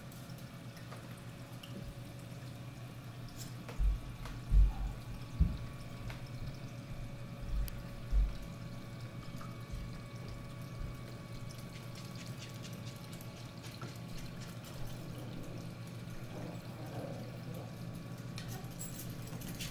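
Reef aquarium's water circulation: water trickling and splashing over a steady hum with a few fixed tones, as from the tank's pumps. A few short, low thumps come about four to eight seconds in.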